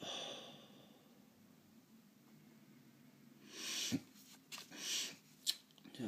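A person sniffling through a runny nose. One sniff fades out at the start, then a run of three or four quick sniffs comes about two-thirds of the way in.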